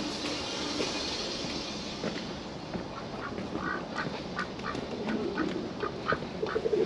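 Domestic duck quacking in a fast run of short quacks, starting about three seconds in.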